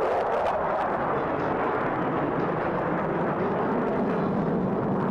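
Jet noise from a formation of F-16 Fighting Falcons flying overhead: a steady rushing roar.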